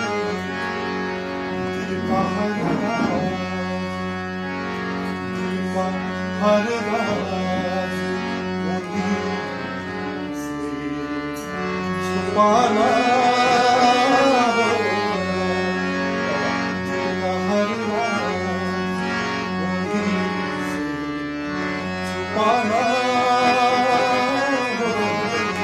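Harmonium playing sustained chords while a man sings a Hindi ghazal in long, wavering held notes.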